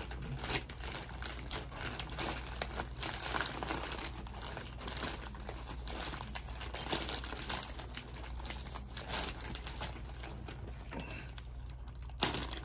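Plastic shipping packaging crinkling and crackling as it is handled and picked open by hand, with many small crackles and a louder crackle near the end.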